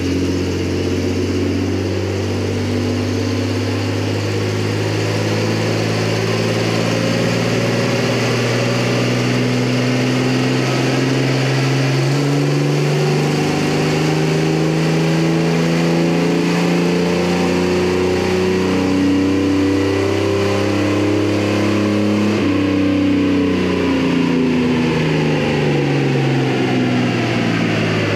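Chevy S-10 pickup running on a chassis dyno, its drive wheels spinning the rollers during a dyno pull. The engine holds steady at first, climbs slowly in revs through the middle, then winds back down after about twenty seconds.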